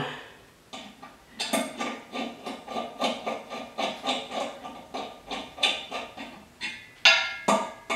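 Light metallic clicking as 5 mm Allen head bolts are screwed into the two metal halves of a garden hose reel, about three clicks a second, with one louder ringing knock about seven seconds in.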